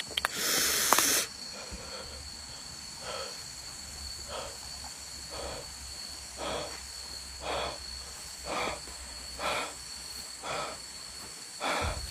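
A loud hiss lasting about a second near the start. Then footsteps through grass and leaf litter, one step about every second, over a steady high insect drone.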